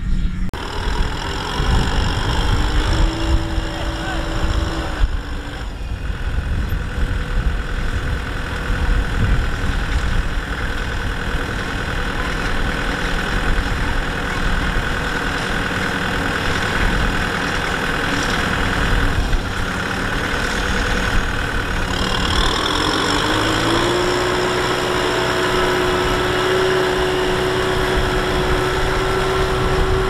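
Rice combine harvester engine running steadily. About three quarters of the way through, it revs up, rising in pitch, then holds at a higher steady speed.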